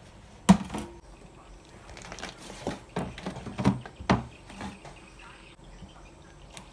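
Wooden chopping boards and a kitchen knife knocking at a stainless steel sink while green chillies are cut on a bamboo board: one sharp knock about half a second in, then a run of uneven knocks and taps.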